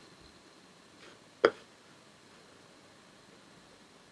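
A single sharp computer mouse click about a second and a half in, against quiet room tone.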